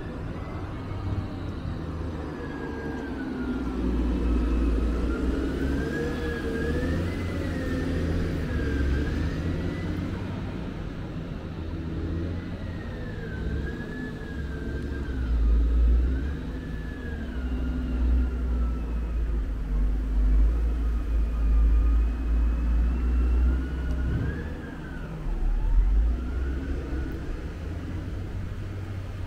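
A distant siren wailing slowly up and down over a loud, uneven low rumble.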